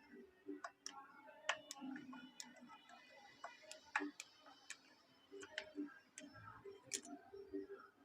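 Scattered faint clicks and light taps of hand tools working on a chainsaw's fuel line, at irregular spacing.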